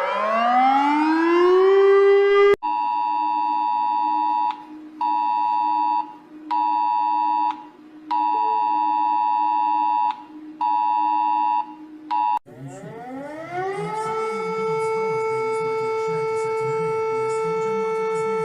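Emergency alert sounds in succession. A rising electronic siren glide cuts off sharply. Next comes a two-tone alert attention signal, the Wireless Emergency Alert tone used for an Amber Alert, beeping in a repeating pattern of one long tone then two short ones over a steady low hum. About two-thirds of the way in a siren winds up in pitch and holds a steady wail.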